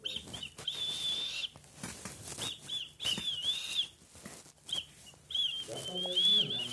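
High-pitched whistling: long held notes broken by quick dips and warbles, in phrases separated by short pauses, with a sharp hissy burst near the end.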